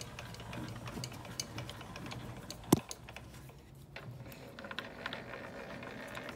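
A metal lathe's handwheel being wound by hand with the spindle stopped, feeding the tool up toward the work: a run of small mechanical clicks and ticks, with one sharp, louder click nearly three seconds in.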